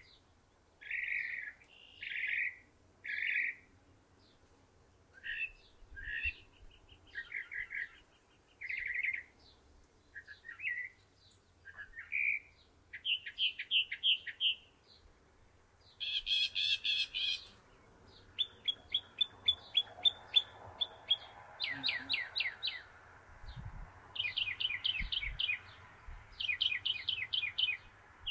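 Northern mockingbird singing a varied series of short phrases: clear notes at first, then rapid stuttering trills, with a loud harsh burst about halfway through followed by more fast ticking trills.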